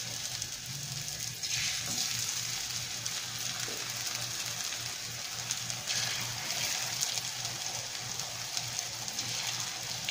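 Cheese-filled corn tortilla triangles frying in hot oil in a skillet: a steady sizzle that flares up three times as more pieces are laid into the oil.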